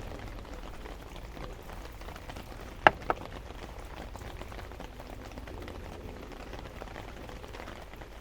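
Rain pattering steadily on a tarp. About three seconds in there are two sharp knocks in quick succession, louder than the rain.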